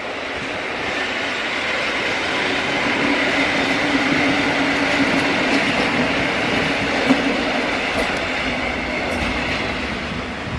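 PolRegio EN57 electric multiple unit rolling past as it pulls into the station: a steady rumble of wheels on the rails with a low hum. It grows louder over the first few seconds, holds, then fades near the end as the train passes.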